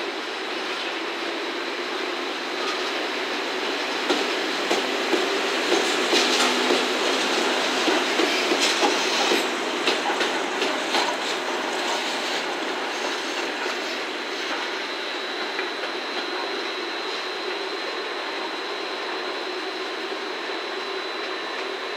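Slow-moving train of an EF65 electric locomotive hauling a D51 steam locomotive rolling past, its wheels clacking over the rail joints, loudest from about four to twelve seconds in, then easing off as it draws away. A thin, high, steady whine holds through the later part.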